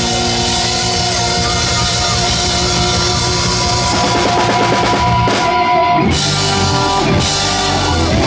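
Live rock band playing, with drum kit and guitar over held notes, and a run of hard drum hits after the middle.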